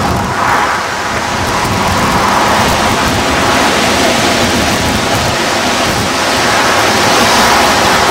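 Steady, loud rushing noise with no distinct events, the outdoor roar heard at the seashore.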